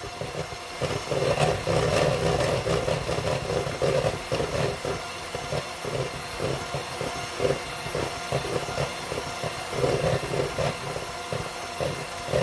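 KitchenAid electric hand mixer running steadily, its beaters whipping cold cream in a stainless steel bowl. The cream is nearly whipped to stiff peaks.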